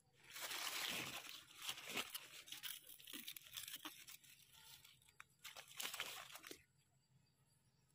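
Dry leaf litter and gritty soil crunching and rustling as a gloved hand and a knife dig a young mushroom out of the ground. It comes as a string of scrapes and crackles that starts just after the beginning and stops about six and a half seconds in.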